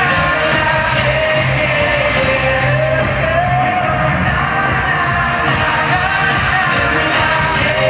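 Live pop-rock concert: male vocal group singing over a live band, heard from the audience through the arena's sound system.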